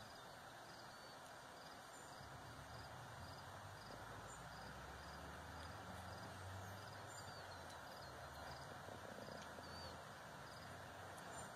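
Faint outdoor ambience: a low steady hiss with a soft high chirp repeating a little faster than once a second, and a few brief bird calls in the second half.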